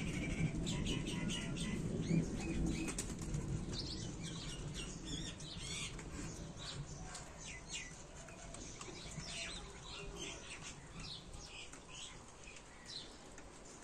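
Pigeons' wings flapping, with many short, high chirps from small birds over them. The sound grows fainter toward the end.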